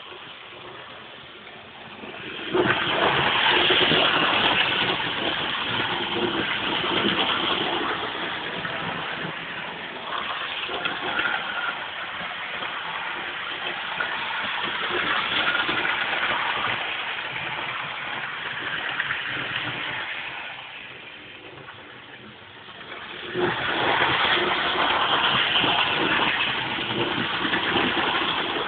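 Hornby OO gauge model train running on its track: a steady whirr of the small electric motor and the clatter of wheels on the rails. It grows louder about two and a half seconds in, drops away around twenty seconds in, and comes back strongly a few seconds later.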